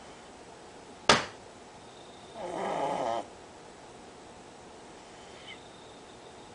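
Shih Tzu dog snoring: a single snore of just under a second, a little over two seconds in, preceded about a second in by one sharp click.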